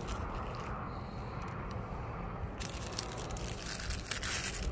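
Faint rustling and crinkling from a paper-wrapped firecracker pack being handled and pressed down onto artificial turf, over a steady low rumble. The rustling gets brighter a bit over halfway through.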